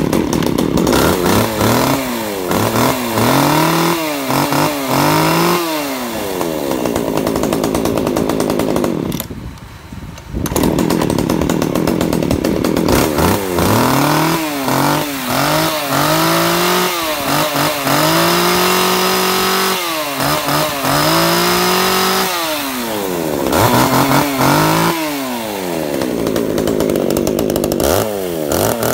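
Small two-stroke top-handle chainsaw being test-run, revved up and back down to idle again and again. The revs come as quick blips at first, then as longer held revs in the middle and quick blips again near the end. There is a brief drop in sound about ten seconds in.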